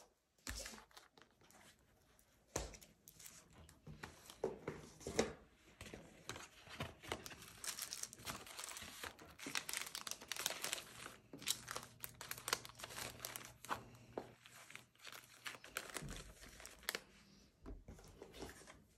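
Clear plastic diary pouches and paper scraps rustling and crinkling as they are handled and stacked, with scattered light taps on the desk. The rustling is densest near the middle.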